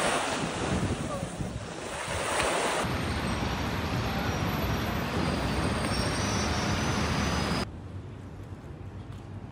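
Waves washing onto a sandy beach with wind on the microphone. About three seconds in this cuts to a steady hum of city traffic and wind. Near the end it drops abruptly to the quiet hush of a large reading room, with a few faint clicks.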